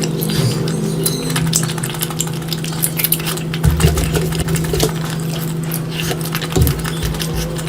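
Close-miked eating of curry: wet chewing and smacking with many small clicks and crackles, over a steady low hum.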